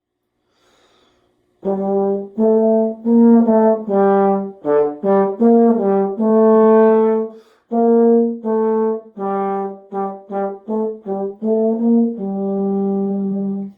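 A brass instrument playing a short solo melody of separate notes, some short and some held, ending on a long held note.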